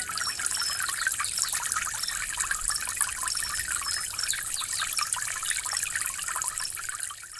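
A small stream trickling and splashing over rocks, fading out near the end.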